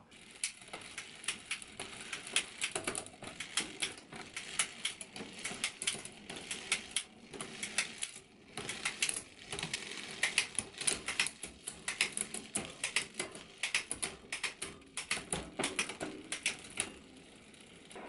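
SRAM Apex 1 eleven-speed rear derailleur and chain running over a wide-range cassette as the drivetrain is turned by hand: quick irregular runs of clicks and ticks as the chain shifts from cog to cog, shifting crisply, with a short lull about halfway.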